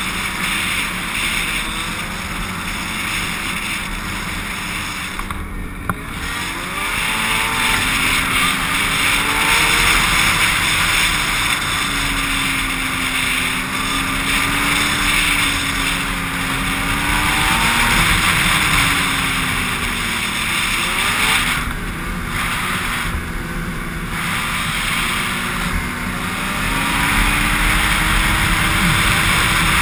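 Snowmobile engine running at trail speed, its pitch rising and falling as the throttle changes, with wind rushing over the helmet-mounted camera.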